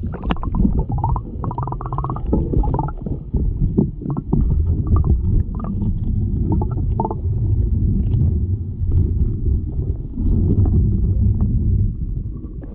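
Muffled low rumble of moving water with scattered knocks and clicks, heard through an action camera's waterproof housing underwater.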